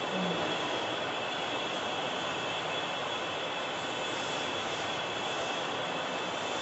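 Steady industrial machinery noise in a heavy machining shop: an even hiss with a thin, steady high-pitched whine running through it.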